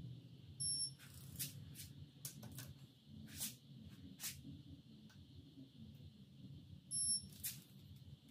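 Digital torque wrench beeping twice, about six seconds apart, each short beep signalling that the set torque is reached on a head stud of a Ford 4.6 four-valve V8. Scattered metallic clicks and taps from the wrench and socket come between the beeps.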